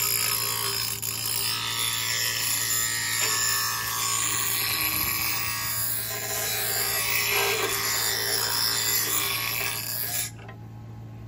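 Small bench grinder running with a steady motor hum while a steel garden-tool blade is held against the spinning wheel, a grinding noise as the edge is sharpened and sparks fly. About ten seconds in the grinding stops suddenly as the blade is lifted off, leaving only the motor hum.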